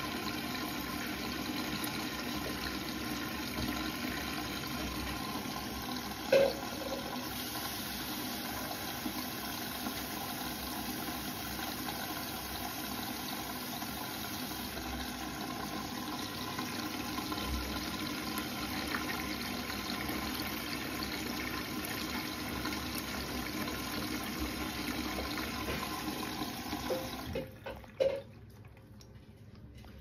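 Bosch front-loading washing machine filling with water on its rinse programme: a steady rush of incoming water with sloshing in the drum, and one brief knock about six seconds in. Near the end the rush drops away, with a couple of clicks.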